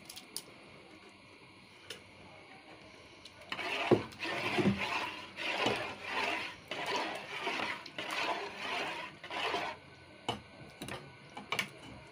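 A metal spoon stirring and scraping thick, mushy khichda (mashed lentils with meat) in an aluminium pot. The rhythmic stirring strokes, about one and a half a second, start about a third of the way in and stop a couple of seconds before the end, with a few sharp clicks of the spoon against the pot.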